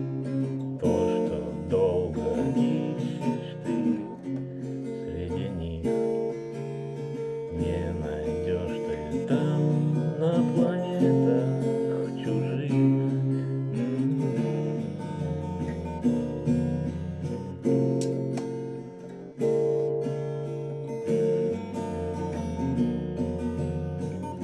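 Acoustic guitar strummed through a run of chords in an instrumental passage without singing, with a brief pause about three quarters of the way through.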